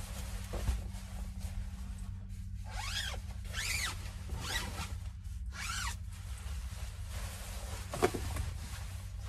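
Zipper on a shiny nylon sleeping bag being drawn in four quick strokes, each rising then falling in pitch, with the fabric rustling; a single sharp knock comes near the end.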